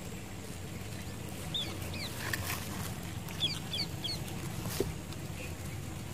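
A small bird chirping: two short bursts of quick high notes over steady low outdoor background noise.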